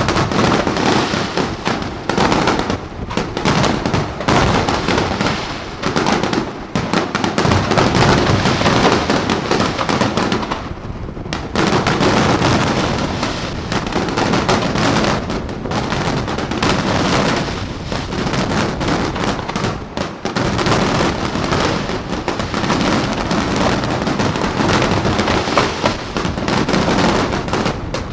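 Fireworks display at full intensity: a dense, unbroken barrage of shell bursts and crackling reports, thinning briefly near the middle before building up again.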